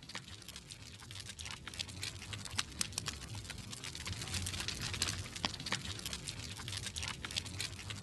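Wood fire crackling, with sharp irregular snaps and pops over a low rumble, slowly growing louder.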